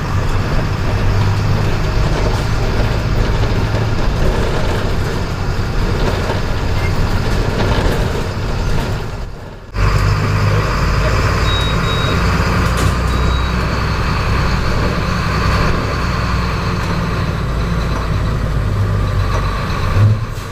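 Diesel engine of a VW 17.230 EOD city bus running steadily under load. About nine and a half seconds in the engine sound drops away for a moment and comes straight back with a heavier low drone, as at a gear change on its manual ZF gearbox.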